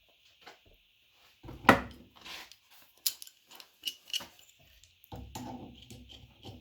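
Metal clicks and clanks of a locking adjustable wrench being worked and clamped shut with its vice-grip lever, with one louder knock a little under two seconds in. A steady insect chirr runs underneath.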